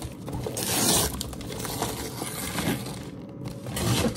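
Gift packaging being crumpled and torn open by hand, with the loudest rip about a second in.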